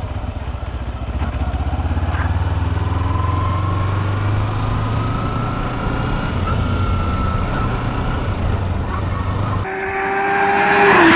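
Kawasaki Ninja 250R's parallel-twin engine running under way, its pitch rising slowly as the bike picks up speed. Near the end it cuts off suddenly and an outro sound with a falling tone comes in.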